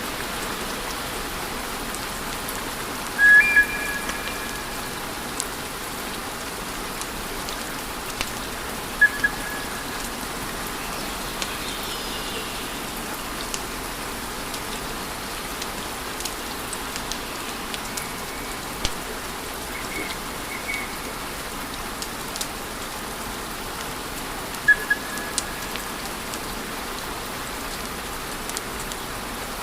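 Wood fire crackling with a steady hiss and scattered sharp pops. A few short, high, steady whistles sound about three seconds in, around nine seconds, twice in the middle and again near the end.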